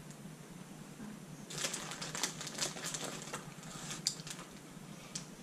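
Plastic candy bag crinkling in irregular quick crackles as hands dig into a bag of sour gummy worms, starting about a second and a half in.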